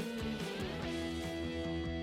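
Background music with strummed guitar and held chords.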